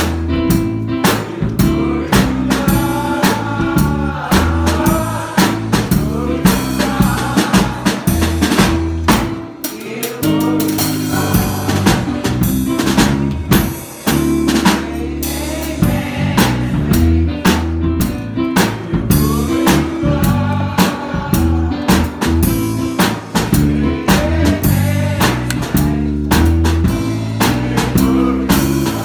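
Live gospel band music led by a drum kit: steady snare, bass drum and cymbal hits drive the beat over a stepping bass line.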